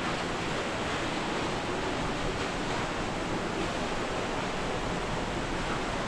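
Waterfall, its falling water rushing steadily without change.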